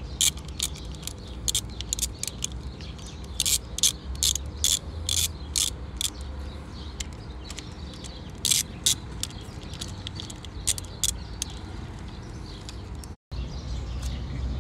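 Socket ratchet clicking in quick runs as the fuel rail bolts are tightened, over a low steady rumble.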